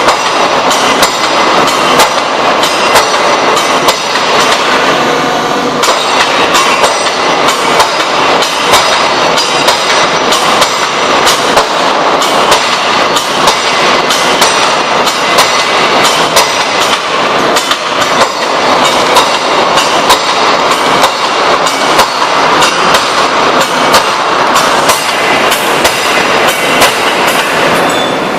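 3-ton hydraulic open die forging hammer working, a long run of rapid, irregular clanking blows over a steady, loud din.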